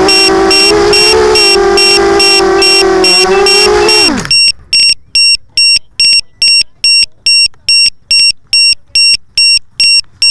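ZMR250 quadcopter's DYS 1806 brushless motors with Gemfan 5040 props running steadily at idle on the ground, then spinning down and stopping about four seconds in. A high-pitched beeper on the quad beeps evenly throughout and goes on alone after the motors stop, about two beeps a second.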